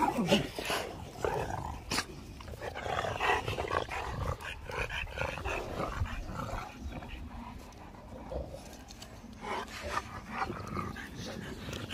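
Dogue de Bordeaux dogs growling low and scuffling while one chews and paws at a fabric ring toy, with irregular knocks and rustles from the toy and paws.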